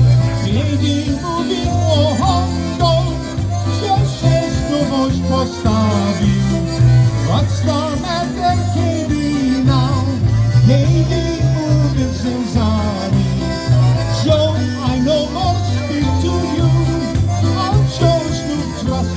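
Live polka band playing a polka, with a steady oom-pah bass and an even drum beat under the melody.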